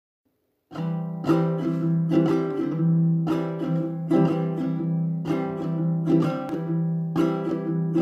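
Baritone ukulele playing an instrumental introduction. It starts under a second in, with chords struck in a steady rhythm and each left ringing.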